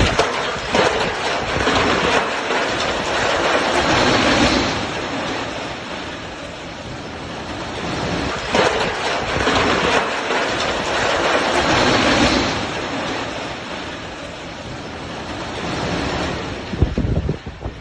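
Strong windstorm wind blowing in gusts, its rushing noise swelling and easing every few seconds.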